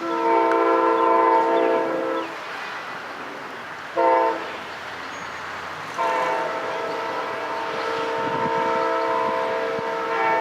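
Amtrak GE P42DC locomotive's air horn sounding a chord of several tones in three blasts: a long blast, a short one about four seconds in, and another long blast from about six seconds in, held on.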